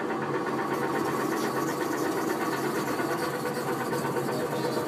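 Ride-on tractor of a kiddie tractor ride, its motor running steadily as it travels along the track, heard from inside the cab.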